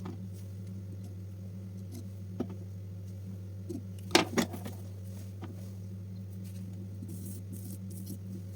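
Steady low electrical hum with a few sharp clicks and taps over it, the loudest about four seconds in.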